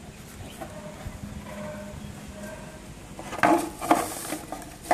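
Hard parts of a boxed device with metal brackets knocking and clattering as it is handled: a few sharp clacks about three and a half to four seconds in, and another near the end.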